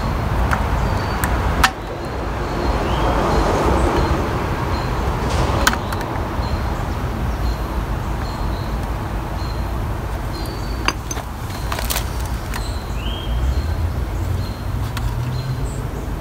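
A few sharp clicks and taps of small hand tools worked inside a plastic trimmer fuel tank, over a steady low rumble.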